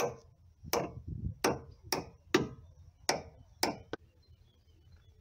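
About eight sharp knocks, half a second to a second apart, as a narrowboat's stiff weed hatch fastening is struck to work it loose. They stop about four seconds in.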